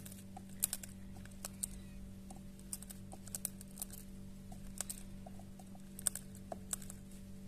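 A pet bird eating: irregular sharp clicks and crunches of its beak working on food, over a steady low hum.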